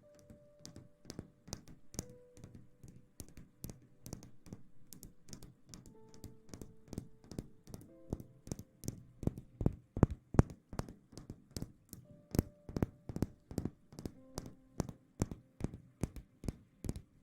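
Rapid sharp taps, about four a second, growing louder past the middle, over faint soft music.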